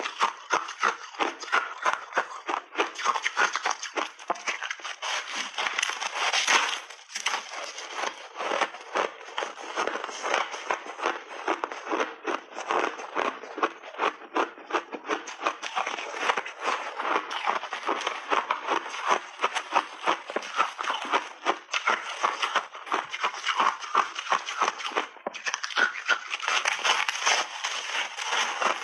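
Ice and frozen berries crunching between the teeth in close-up: a dense, continuous run of sharp cracks and crackles from steady chewing.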